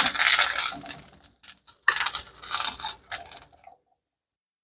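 Metal kitchen tongs clicking and scraping against a ceramic frying pan as quesadillas are lifted out, in two short spells about a second apart. The sound then cuts off suddenly.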